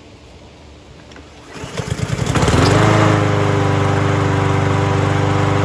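Troy-Bilt walk-behind mower's 160cc Honda engine pull-started for the first time, with auto choke. About a second and a half in, the recoil starter cranks it briefly; the engine catches on that pull, climbs quickly in pitch and settles into a steady run.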